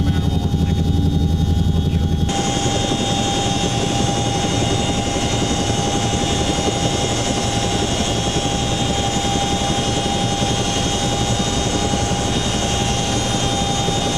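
CH-47 Chinook helicopter running: a deep rotor drone, then about two seconds in a sudden change to a steady high whine over a loud rushing noise, heard close beside the helicopter's landing gear.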